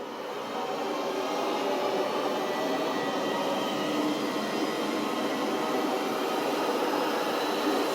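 Film soundtrack: a dense, steady rushing noise that swells over the first two seconds and then holds.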